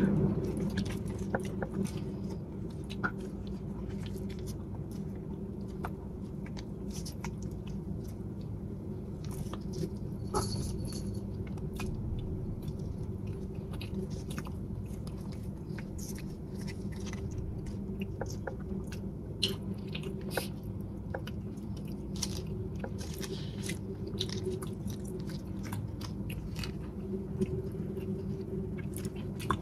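Close-miked chewing and soft mouth sounds of eating sticky rice cake, with scattered small crackles as its dried leaf wrapper is peeled back, over a steady low hum.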